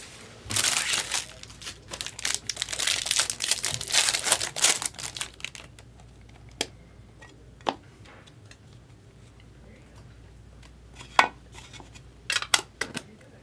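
Foil wrapper of a trading-card pack being torn open and crinkled for about five seconds, then a few separate sharp clicks as the cards are handled.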